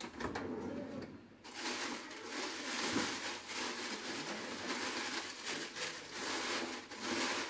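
Rummaging in a refrigerator's vegetable drawer: steady rustling that starts about a second and a half in.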